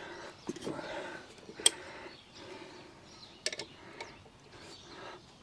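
A few sharp, separate clicks and clinks of hand tools on metal fittings, as bolts are worked on during reassembly of a motorcycle's front end.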